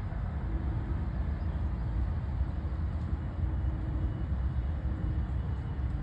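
Steady low rumble of distant road traffic, with a faint low hum coming and going.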